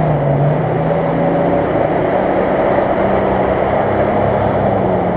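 Off-road SUV's engine running steadily under load as it pushes through a deep mud pit, a continuous low drone that rises slightly in pitch just after the start.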